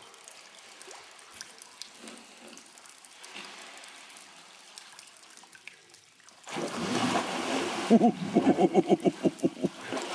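Gentle sea water lapping and trickling around a kayak, with faint drips. About six and a half seconds in, a loud breathy rush begins, followed by a rapid run of pulsed, voice-like sounds at about seven a second.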